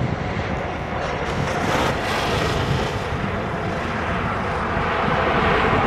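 Jet airliner's engines running as it passes near the runway: a steady rushing roar with a faint whine, its high hiss strongest about two seconds in.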